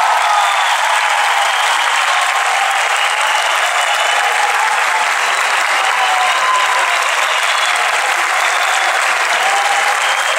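Large audience applauding steadily at the close of a piece.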